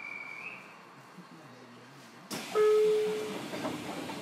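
Station departure aboard a JR Kyushu 303 series electric train: a short high whistle ends near the start, then about two seconds in the doors close with a sudden burst of noise and a loud steady buzzer-like tone lasting under a second.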